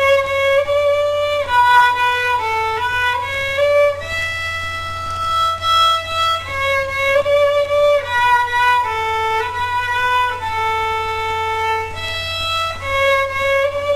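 Background music: a slow melody of held notes on one instrument, over a steady low hum.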